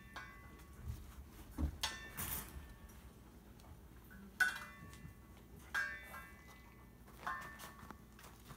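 A few sharp metallic clinks, each with a short ringing, as a puppy tugs and bites at a cloth toy hung from the wire of its exercise pen; the loudest comes about four and a half seconds in.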